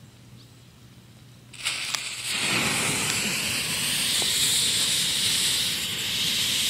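Homemade potassium nitrate and sugar smoke bomb catching about a second and a half in, then hissing steadily as it jets out smoke.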